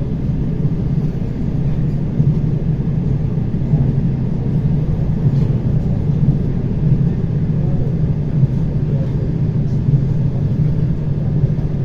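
ER9T electric multiple unit running between stations: a steady low rumble of the train under way.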